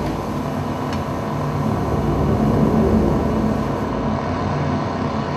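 Droning ambient performance soundtrack: a steady low rumble with held deep tones.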